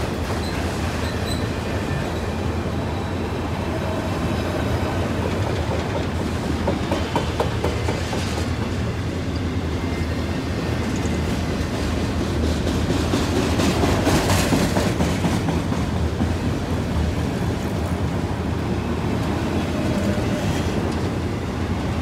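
Freight train of autorack cars rolling past close by: the steady noise of steel wheels on the rails, a little louder about two-thirds of the way through.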